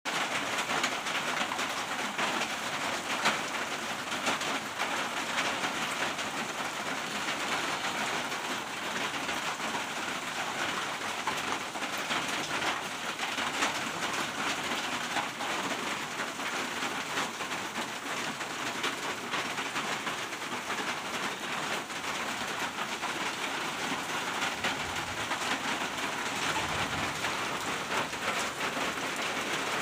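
Steady rain falling on a corrugated metal roof, a dense patter of drops, with a low rumble of thunder near the end.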